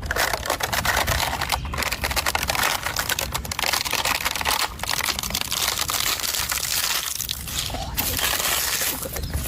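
Continuous crunching and crackling, a dense run of small cracks and crinkles that fades briefly a few times.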